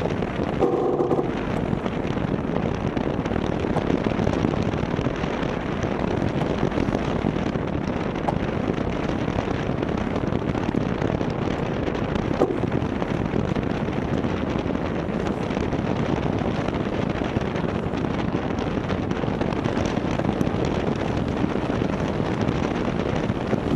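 Steady rush of wind across the microphone and water rushing along the hull of a Maxi 72 racing yacht under sail, with a brief pitched sound about a second in.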